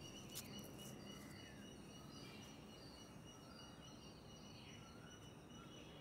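Near silence: faint outdoor ambience with a few faint high chirps.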